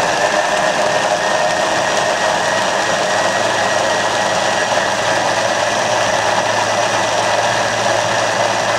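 A countertop kitchen robot blender runs at maximum speed, its blade blending the salmorejo base. It makes a steady whir that cuts off near the end.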